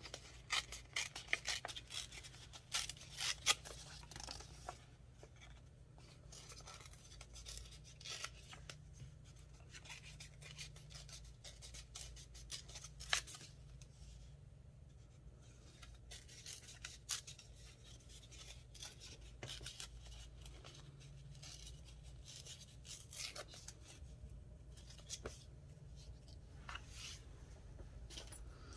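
Scissors snipping paper in quick runs of cuts, thinning out to occasional snips after about five seconds.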